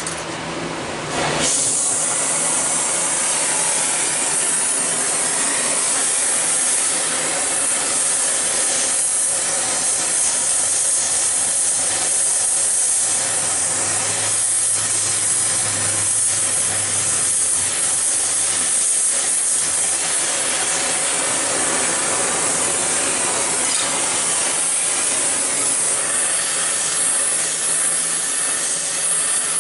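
Oxy-acetylene torch flame burning with a steady, loud hiss while it heats a steel bar. About a second in it jumps louder as the flame goes from a smoky acetylene-only flame to a full oxygen-fed flame.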